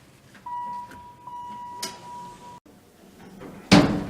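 A steady, high electronic beep held for about two seconds with a brief break partway, followed near the end by a single loud knock.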